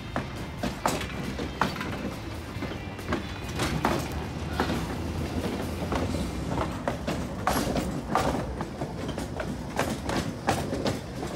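Tram cars rolling slowly past at close range: a steady low rumble with irregular sharp knocks and clicks from the steel wheels over the rail joints.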